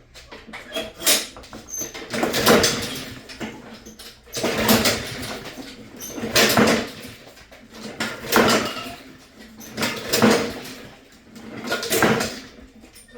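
Honda lawnmower engine being pull-started: the recoil starter rope is yanked about seven times, roughly every two seconds, each pull a short whir as the engine turns over without catching.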